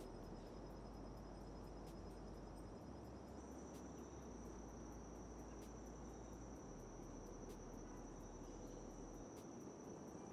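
Faint insects trilling outdoors: a pulsing high trill that gives way about three seconds in to one steady, continuous high-pitched trill, over a low background rumble.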